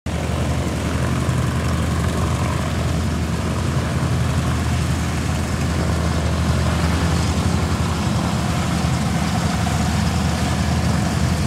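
Douglas C-47 transport's twin radial engines running steadily on the ground, propellers turning, a low, even drone.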